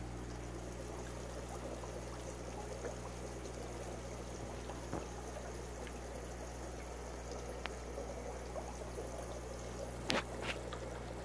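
Aquarium filter running: water trickling and splashing into the tank over a steady low hum. A few sharp clicks, the loudest two near the end.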